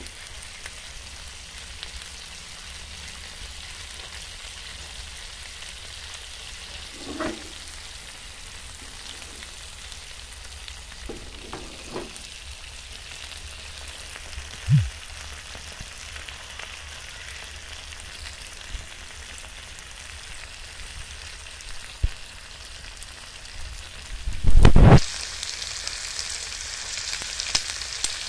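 Skinned field-rat pieces frying in oil in a pan: a steady sizzle, broken by a few brief knocks and one loud thump near the end, after which the sizzle turns brighter.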